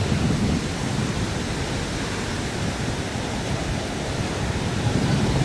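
Ocean surf washing onto a beach: a steady rush of noise that swells just after the start and again near the end as waves break.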